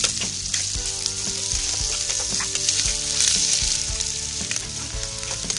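Chopped onions sizzling in hot oil in a kadhai, stirred with a steel ladle that clicks and scrapes against the pan. The onions are raw, just added, at the start of frying to light brown.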